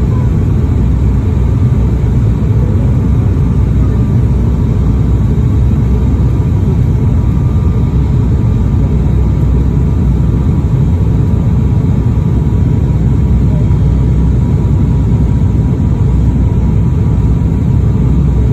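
Steady, loud drone of a high-wing turboprop airliner's engines and propellers heard inside the cabin, deep and unchanging, with a faint steady whine on top.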